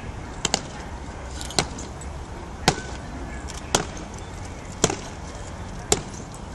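Honor guard soldier's boots striking the stone pavement in a slow ceremonial march step, a sharp crack about once a second.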